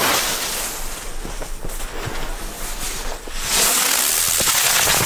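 Smoke-trail whirl firework hissing as it burns, giving off coloured smoke: a steady rushing hiss that grows louder about three and a half seconds in.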